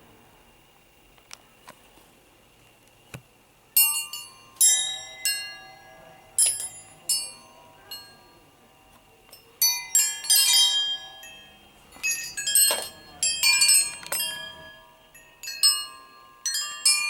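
Hand-forged metal wind chime of twisted tapered rods, ringing as the rods strike one another. After a few faint clicks, irregular strikes begin about four seconds in, some in quick clusters, each leaving several high bell-like tones that fade over about a second.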